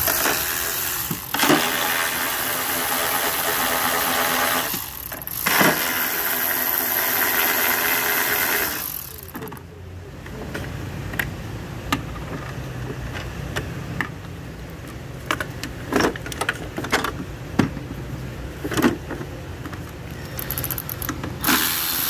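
Milwaukee M12 cordless ratchet running in three bursts over the first nine seconds, spinning a battery terminal clamp nut loose. After that come scattered clicks and taps of the tool and metal parts being handled.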